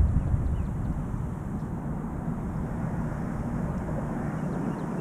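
Low, steady rumble of wind noise on an action camera's microphone over open water, louder in the first second and then settling.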